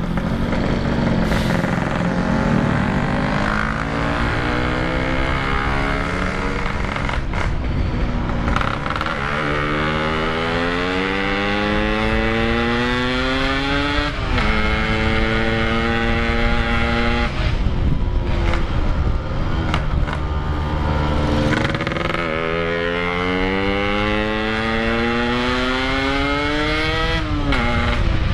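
Yamaha RX-King's single-cylinder two-stroke engine, with an opened-up stock exhaust, accelerating while riding: its pitch climbs for several seconds and drops sharply at each gear change, with shifts about two-thirds of the way in, shortly after, and again near the end.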